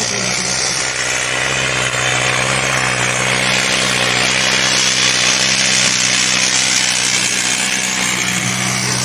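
Mahindra Arjun diesel tractor engine running hard under heavy load as it drags a sandbag-weighted disc harrow through sandy soil, a steady engine note that grows louder as the tractor nears, loudest about halfway through.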